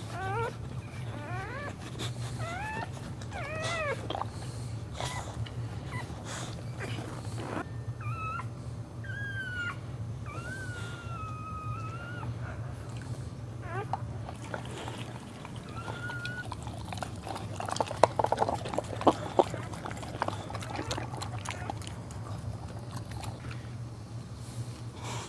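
A dog whelping, giving high, sliding whimpers and squeals, some short and some drawn out and wavering, over a steady low hum. A few sharp knocks come about three quarters of the way in.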